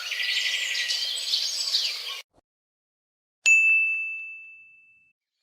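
A single bright ding: one sharp strike leaving a clear, high ringing tone that fades away over about a second and a half. Before it, busy chirping cuts off abruptly, followed by a moment of silence.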